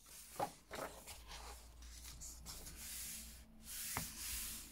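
Pages of a paperback colouring book being turned and smoothed flat by hand: paper rustling and rubbing, with one short sharp click about four seconds in.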